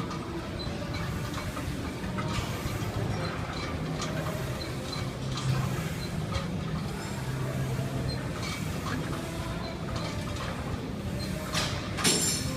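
Gym background: a steady low hum with scattered knocks and clinks of weight equipment, and a louder clatter near the end.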